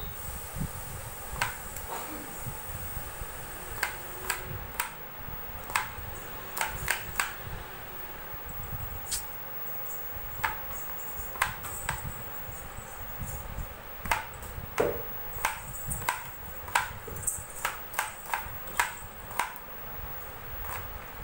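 A knife slicing ivy gourds (tindora) into thin rounds against a cutting board. Each cut is a sharp click, irregular at first and then about two a second in the second half.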